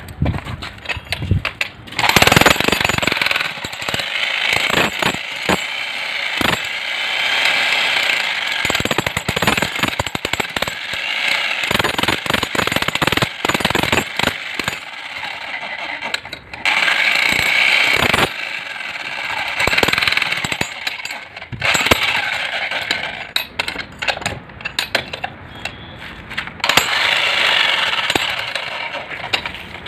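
Power tool hammering rapidly, in long bursts with short pauses between them.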